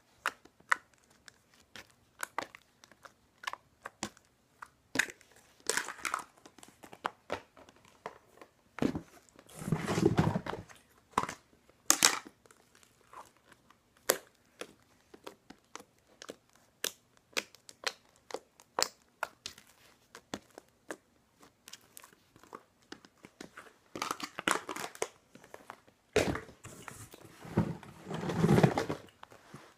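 Slime being poked and stretched by hand: many short, sticky clicks and pops, with two longer, louder stretches about ten seconds in and near the end.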